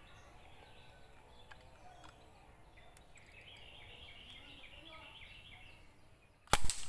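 A single sharp crack near the end from a Sharp Tiger bullpup pump air rifle charged with four pumps, fired at a squirrel. Faint rapid bird chirping comes before it.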